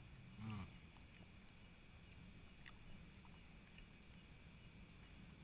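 Near silence with faint night insects chirping in short, high trills about once a second, and a brief murmur of a voice about half a second in.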